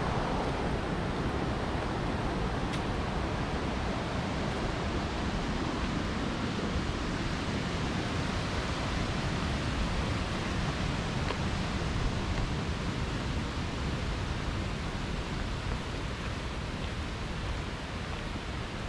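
River water rushing steadily over rocks, a continuous even roar that eases off a little near the end.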